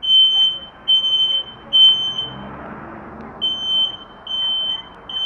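Smoke alarm sounding a loud, high-pitched beep in groups of three with a short pause between groups, the standard evacuation pattern. It was set off by steam from a hot shower, not a fire, as the owner takes it.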